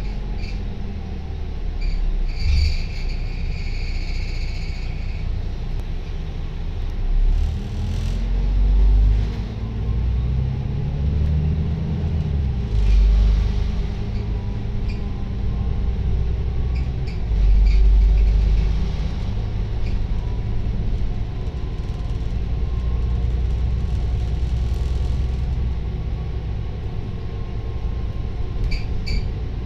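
A Volvo B9TL double-decker bus, with its Euro 3 Volvo D9A six-cylinder diesel, heard from the upper deck while it is under way: a steady low engine rumble with road noise. The engine note rises and falls a few times, loudest in swells around a third and two-thirds of the way through, and there is a brief high whine a few seconds in.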